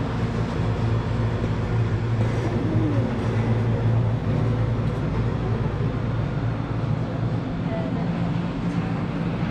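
Steady low mechanical hum of a running machine, holding an even pitch throughout.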